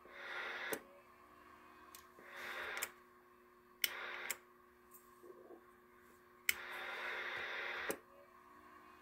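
Four short bursts of radio static hiss on a CB radio and Palomar 225 amplifier setup, each switched on and off with a sharp click. A faint steady hum runs underneath.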